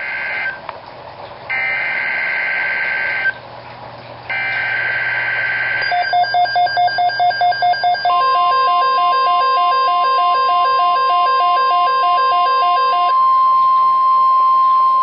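Midland WR-100 weather radio sounding a NOAA Weather Radio emergency alert. Three short bursts of screeching digital data come first, with brief pauses between them: the SAME header that triggers the alert. Then the radio beeps rapidly, about three times a second, and about two seconds into the beeping the steady 1050 Hz warning alarm tone begins and holds on after the beeping stops.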